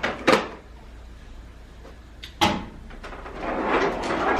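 Kitchen handling sounds: two sharp clacks, about a third of a second in and again about two and a half seconds in, then a rushing noise that builds over the last second or so.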